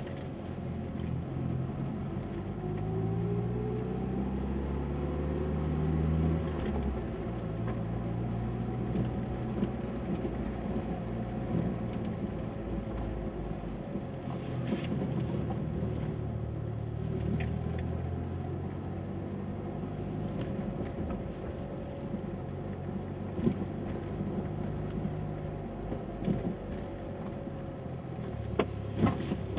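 Mitsubishi Lancer Evolution on the move, its engine running and rising in pitch as it accelerates a few seconds in, then holding steady. About halfway through comes the clunking abnormal noise the owner is chasing, a 'goto-goto' knock, with a few more sharp knocks near the end.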